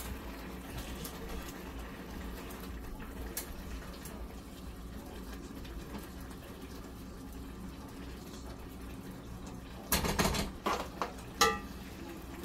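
A pot of greens bubbling on the stove at the boil, over a steady low hum. About ten seconds in comes a burst of clatter and a few knocks, the last with a short ring.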